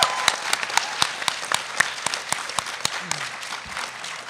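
Audience applause, many hands clapping together, gradually fading and thinning out toward the end.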